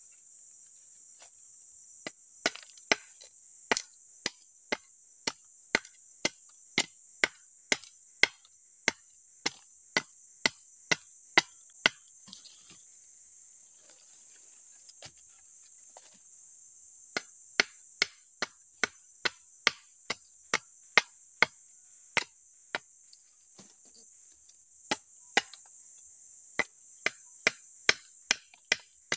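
Wooden mandau sheath of gerunggang wood being chopped at and split, sharp wooden knocks about two a second in two runs with a pause of a few seconds in the middle, as the glued sheath is forced apart. A steady drone of insects goes on behind.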